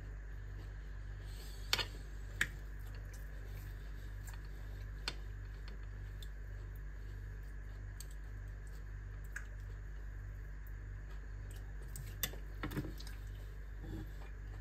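Metal knife and fork clicking and scraping against a glass plate a handful of times, two close together about two seconds in and a small cluster about twelve seconds in, over a steady low hum.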